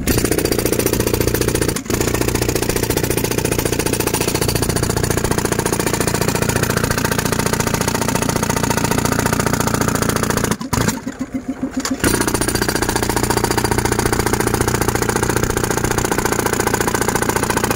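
Handheld pneumatic breaker (air hammer) chipping into hard red soil, running as a fast, continuous hammering. It stops for about a second and a half near the middle, leaving the compressor's engine running on its own, then starts again.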